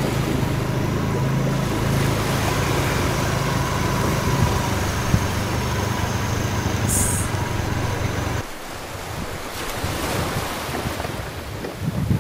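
Small motor scooter engine running steadily under heavy wind noise on the microphone; about eight seconds in the engine note drops away, leaving mostly the rush of wind.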